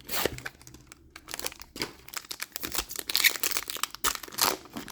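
Foil Yu-Gi-Oh booster pack wrapper being handled and torn open by hand: an irregular run of crinkles and crackles.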